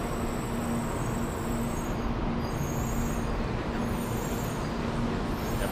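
Steady hum and rumble on a Shinkansen station platform, with a constant low tone and faint high-pitched whines that come and go.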